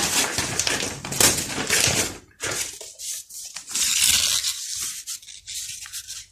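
Paper rustling and rubbing as workbook pages are handled and turned, in uneven scraping bursts, loudest in the first two seconds and again about four seconds in.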